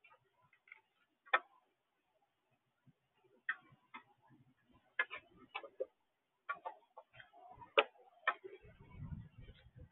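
Mourning dove pecking at seed in a feeder tray, its bill tapping the seed and tray in irregular sharp clicks. A low rumble comes in near the end.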